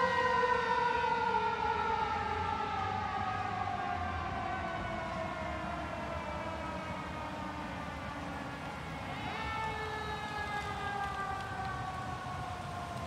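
Fire engine siren rising quickly, then slowly falling in pitch over several seconds, rising again about nine seconds in and falling slowly once more, growing fainter as the truck moves away.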